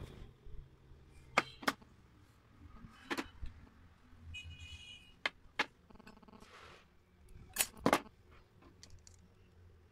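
Scattered clicks and taps of a metal wire and a plastic PVC pipe being handled and fitted together on a tabletop, with a couple of short squeaks in the middle.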